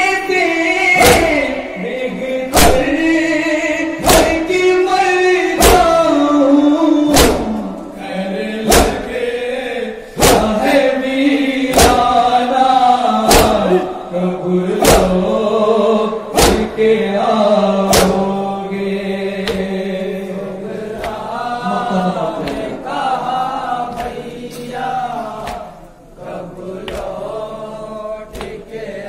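Nauha, an Urdu mourning lament, chanted by male voices in chorus, kept in time by rhythmic matam: hands slapping chests about once every 0.8 s. The slapping fades about two-thirds of the way through while the chant goes on.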